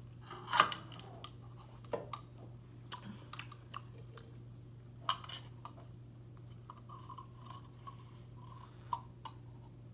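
Close-up mouth sounds of drinking sparkling water: sips and swallows with scattered small clicks, the loudest about half a second in.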